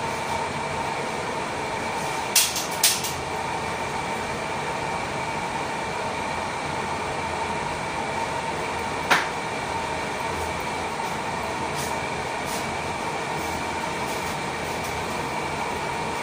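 Steady hum of a kitchen ventilation fan with a faint whine in it, broken by a few sharp clinks of cookware: two close together about two and a half seconds in, and one about nine seconds in.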